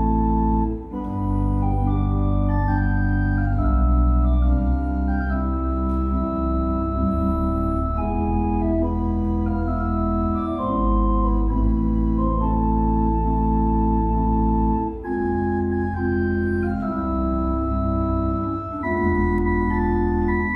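Small pipe organ playing: sustained chords over a deep pedal bass, with an upper line moving step by step. The music breaks briefly between phrases about a second in, around the middle and near the end.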